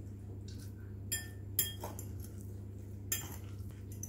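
Metal fork stirring salad in a glass bowl, clinking against the glass a few times.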